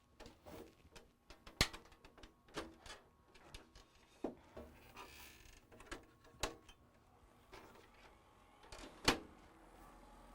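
Scattered light clicks and knocks at uneven intervals, the loudest about nine seconds in.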